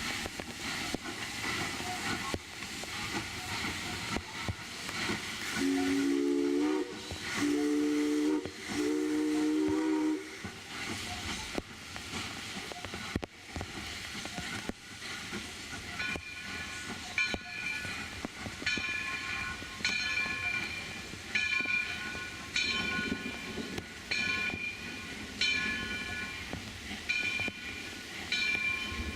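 Steam whistle of Alco 2-8-0 steam locomotive #60 blown in three blasts, over steady hissing of steam. After a pause, a bell rings steadily, struck about once every second and a quarter.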